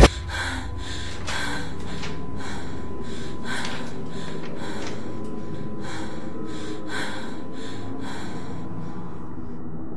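A person breathing hard and fast, sharp gasping breaths about two to three a second, over a steady low drone.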